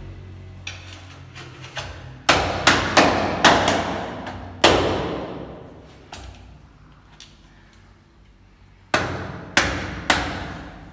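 Sharp knocks as a large ceramic wall tile is struck by hand to bed it into the notched tile adhesive: five knocks a couple of seconds in, then three more near the end.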